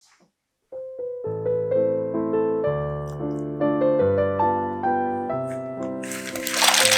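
Background piano music starting under a second in, a melody of struck notes over low chords. Near the end a loud rattling hiss joins it.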